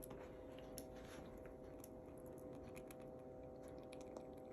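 Faint scattered light clicks and taps over a steady, even hum.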